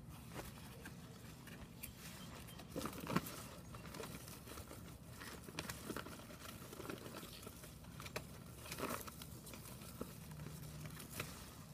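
Potato plant foliage and a fabric grow bag rustling and crinkling as they are handled by hand, with a few sharper snaps of stems, over a faint steady hum.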